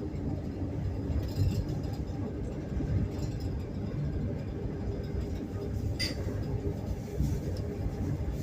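Passenger train running, heard from inside a compartment car: a steady low rumble of the wheels on the track, with a light clink about six seconds in.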